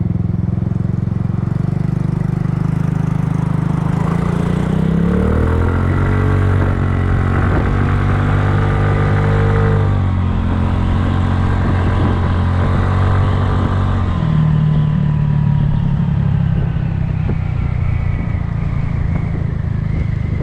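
Kymco People scooter's single-cylinder engine running under way: its note climbs about four to six seconds in as it speeds up, holds, drops back about ten seconds in, then runs on at a lower pitch.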